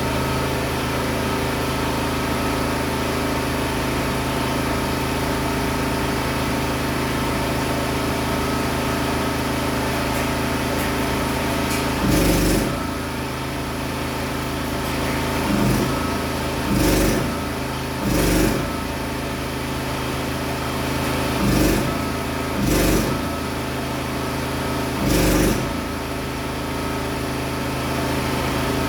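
A steady engine-like machine hum, with seven short, loud, noisy bursts in the second half, each about half a second long.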